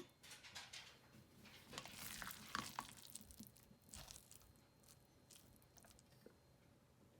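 Faint, irregular crinkling and small clicks of food being prepared by hand, busiest a couple of seconds in.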